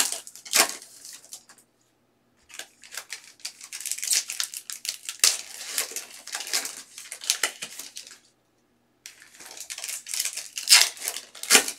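Foil wrappers of Panini Mosaic basketball card packs crinkling and tearing as the packs are ripped open by hand. It comes in irregular bursts with a few sharp snaps and two short pauses.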